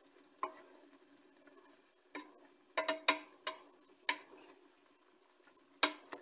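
A wooden spoon stirring sliced mushrooms and chicken in a stainless steel pot, knocking against the metal about eight times at uneven intervals. Several knocks leave a short ring from the pot. A faint sizzle of frying runs underneath.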